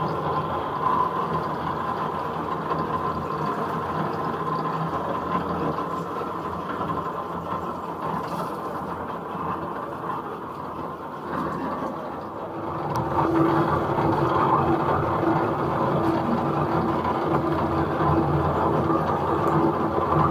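Motorised rubber-sheeting roller mill running steadily as slabs of coagulated latex are fed through its rollers to be pressed into thin sheets. About thirteen seconds in it gets louder and a steady hum comes in.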